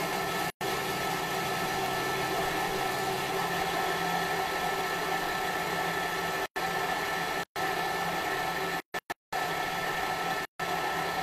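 Thermomix running its blade at speed 7 to grind sugar into powdered sugar: a steady, even motor whir with a constant hum, cut by several brief gaps of silence.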